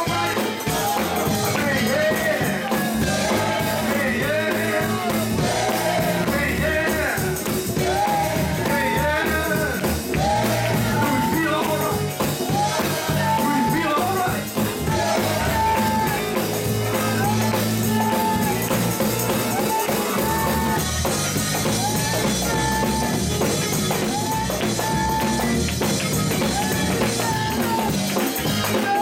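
Live gospel praise music: a band with a drum kit playing, with voices singing.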